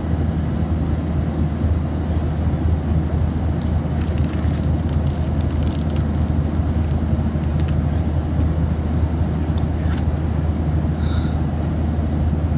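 Steady low drone of an airliner cabin in flight, engine and air-conditioning noise, with a few faint clicks about four to five seconds in.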